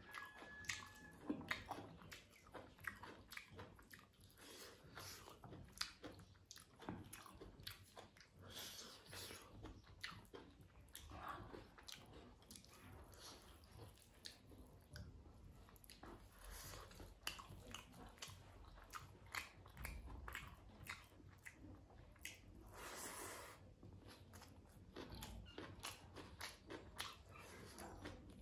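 A person chewing mouthfuls of rice and vegetables close to the microphone, full of soft, quick mouth clicks, while mixing food with the fingers.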